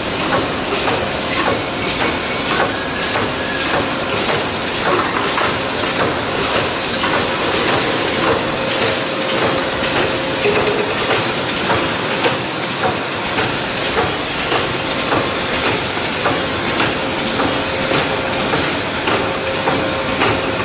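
Automatic screen printing machine for glass bottles running: a steady noise with a constant hum, overlaid by frequent irregular mechanical clicks and clatter from the moving print head and bottle transfer.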